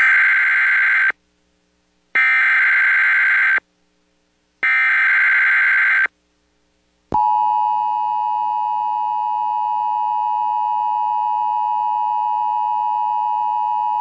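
Emergency Alert System SAME header: three bursts of warbling digital data tones, each about a second and a half long with short silences between. About seven seconds in, the NOAA Weather Radio warning alarm tone starts, a steady single 1050 Hz tone, announcing a tornado warning.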